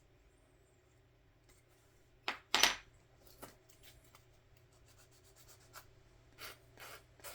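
Small plastic model-kit parts being handled: two sharp clicks a little over two seconds in, then scattered lighter taps and rubbing.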